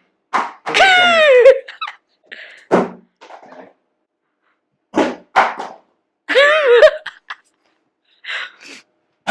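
Short, high-pitched vocal outbursts and laughter in quick, choppy bursts, broken by abrupt silences.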